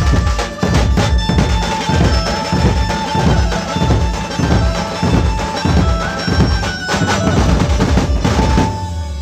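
A Dhumal street band playing: large barrel drums and dhols beat a steady rhythm of deep strokes, about two or three a second, under an amplified melody. The drumming drops away near the end, leaving the tune.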